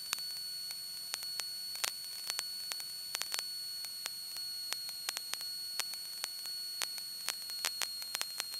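Aircraft radio and intercom audio line between transmissions: a steady hiss with a high-pitched whine, broken by irregular crackling clicks several times a second.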